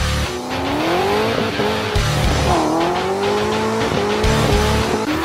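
Mustang engine revving hard, its pitch climbing, dropping sharply about halfway and climbing again, with tyres squealing in a smoky burnout. Under it runs music with a heavy bass beat about every two seconds.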